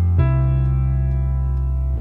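Background music of slow, sustained keyboard chords. A new chord comes in just after the start and is held.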